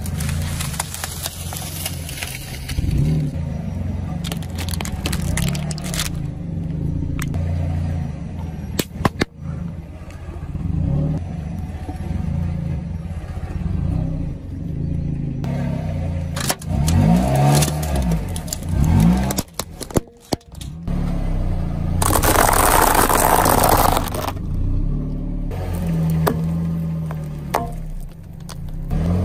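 A car tyre rolling slowly over a series of objects, among them a pile of plastic drinking straws, crushing them with cracks and crackles over the low running of the car's engine. About two-thirds through, a loud stretch of crackling noise lasts about two seconds.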